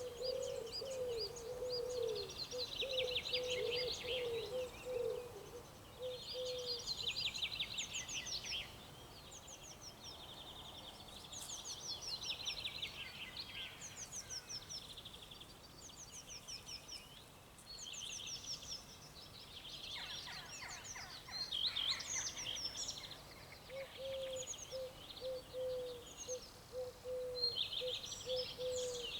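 Several songbirds singing at once, quick high trills and chirps overlapping throughout. A lower run of short repeated notes sounds in the first several seconds and again in the last five.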